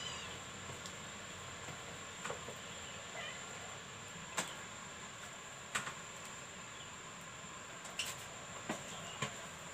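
Scattered clinks and taps of a spoon on aluminium cooking pots, about six in all, with a cat mewing faintly about three seconds in. A thin, steady high tone runs underneath.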